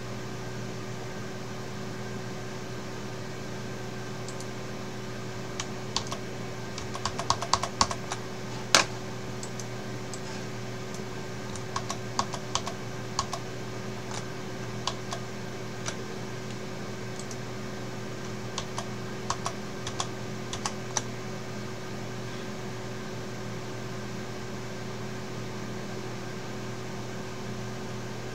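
Computer keyboard keys clicking in short bursts of typing, thickest about seven to nine seconds in and stopping a little after twenty seconds, over a steady low electrical hum.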